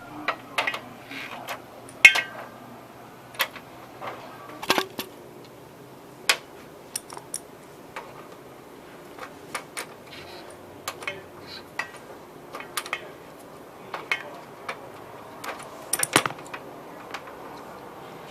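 Irregular metallic clinks and knocks of hand tools and metal parts being handled while the old compressor is taken off a refrigeration unit, a sharp knock every second or so.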